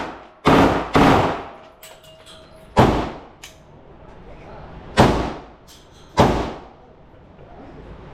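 Five gunshots, each with an echoing tail: two in quick succession about half a second and a second in, then single shots near three, five and six seconds. Fainter sharp cracks fall between them.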